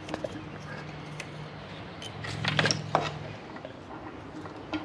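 Light clicks and rattles of plastic wiring-harness connectors and wires being handled, loudest in a short cluster about two and a half seconds in, over a low hum.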